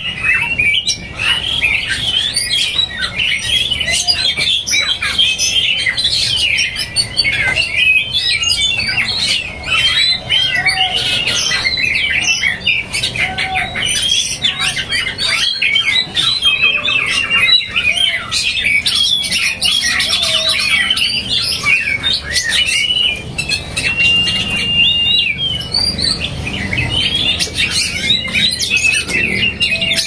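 Caged songbirds, including oriental magpie-robins, singing and chattering without a break: a dense overlapping mix of quick whistles, trills and harsh calls, with one long held whistle near the end.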